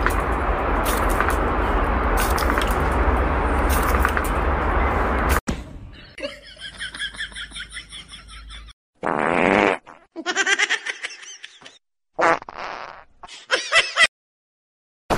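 Hand-held air blower rushing steadily for about five seconds with a dog's muzzle pressed to its nozzle, then cutting off abruptly. After it come several short, high-pitched dog vocalizations with a wavering pitch.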